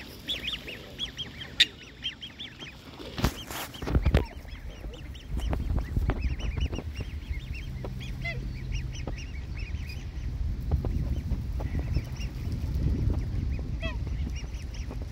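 Mixed waterbirds calling: black swan cygnets, Eurasian coots and ducks give a running series of short high peeps. Low rumbling noise sets in about five seconds in, and there are a few knocks around three to four seconds in.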